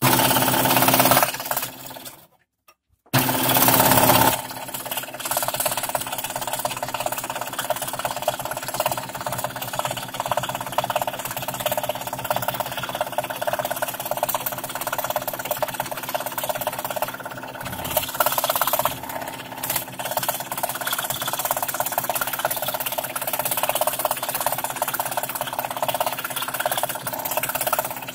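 Scroll saw running, its fine blade cutting fretwork in thin plywood with a steady rapid chatter. The sound breaks off into near silence for about half a second about two and a half seconds in, then runs on steadily.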